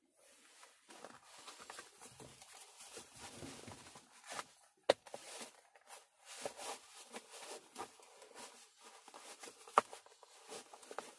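Soft rustling of clothing and seat belt as a Glock 22 pistol is pushed back into an Urban Carry belly-band style holster and the holster is tucked down behind the belt, with two sharp clicks, one about five seconds in and one near the end.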